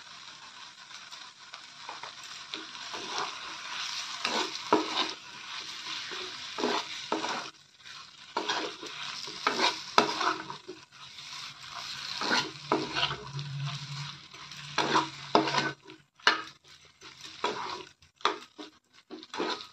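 Steel spatula stirring and scraping potato curry around a kadai, with the oil sizzling underneath. The scraping strokes come irregularly, and the sizzle thins out and the strokes grow sparser near the end.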